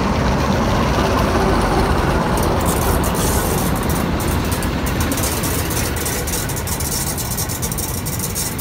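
Diesel locomotive's engine rumbling as it rolls past at close range, followed from about two and a half seconds in by double-deck passenger coaches running by with rapid clicking and rattling from their wheels on the track.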